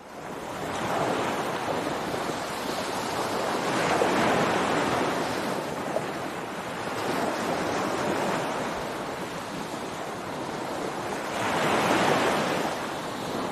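Ocean surf on a beach: waves breaking and washing in, swelling and easing every few seconds. The sound fades in at the very start and is loudest about four seconds in and again near the end.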